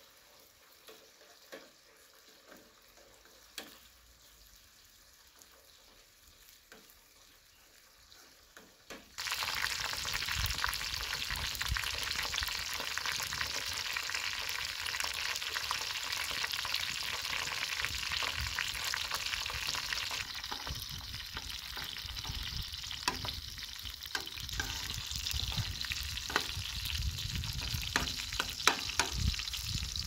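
Faint, with a few light clicks, for about nine seconds. Then a loud steady sizzle of hot oil frying in a cooking pot starts abruptly and keeps going, with scattered clicks near the end.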